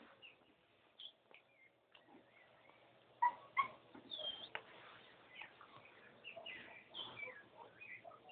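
Puppy whimpering with short high yips; two louder yips come a little after three seconds in.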